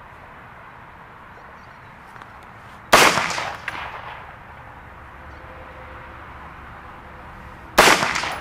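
Two rifle shots from an AR-15 fired off a bench rest, about five seconds apart, each sharp crack followed by a short echoing tail.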